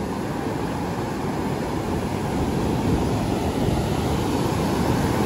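Ocean surf breaking on a beach, with wind buffeting the microphone: a steady noise that swells a little about three seconds in.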